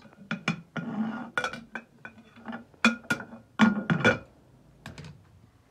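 Kitchen cookware clattering: a quick, irregular run of sharp knocks and clinks, several with a brief metallic ring, loudest about four seconds in.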